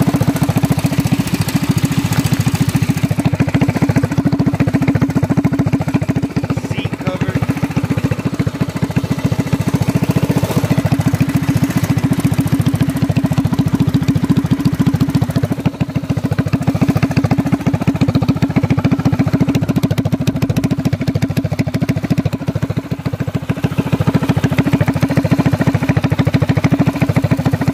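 Modified Predator 212cc single-cylinder engine on a mini bike running steadily at idle, with a rapid, even beat.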